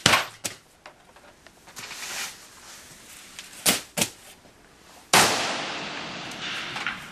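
Rifle shots from the firing lanes, each a sharp crack with a long echoing decay off the rock of the underground range: a loud one at the start, two smaller ones a little before four seconds in, and another loud one about five seconds in that rings on for about two seconds.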